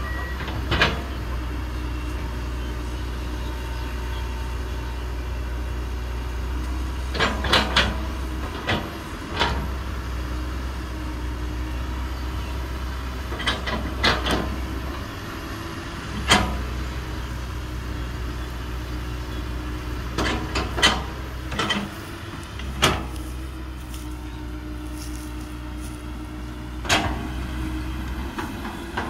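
Komatsu PC200 excavator's diesel engine running steadily under working load as the bucket digs at a tree's roots. Sharp knocks and clanks from the bucket and arm break in every few seconds, a quick cluster of them about seven seconds in.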